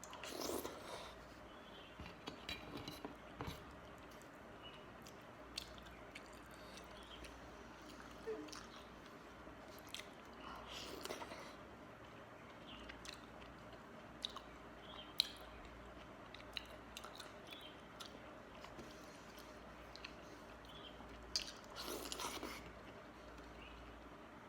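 A person chewing and eating close to the microphone: wet mouth sounds with scattered small clicks. A few louder bites and smacks come near the start, about halfway through and near the end.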